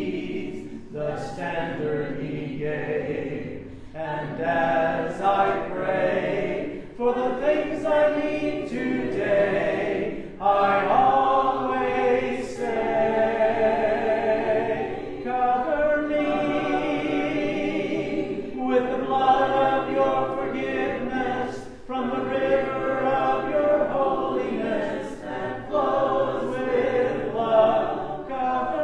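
Congregation singing a hymn a cappella, many voices together, in phrases that break off every few seconds.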